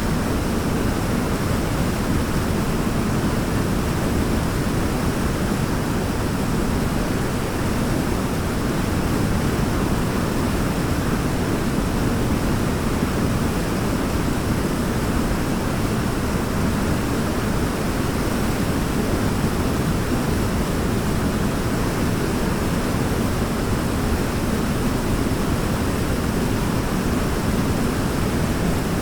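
Waterfall: a steady, even rush of falling water, heaviest in the low range, with no change in level.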